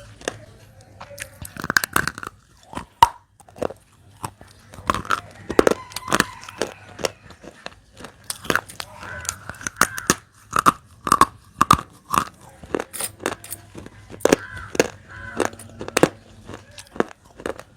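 Close-miked biting and chewing of dry baked clay pieces: a quick, irregular run of sharp, brittle crunches as the clay is bitten off and ground between the teeth.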